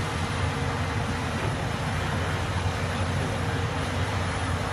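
Diesel engines of several crawler bulldozers working at once, a steady low drone, with the nearest dozer under load as it pushes dirt with its blade.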